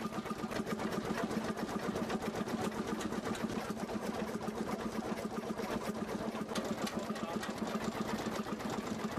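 Three-cylinder Callesen 427 CO engine of a veteran boat running steadily, with an even, rapid beat.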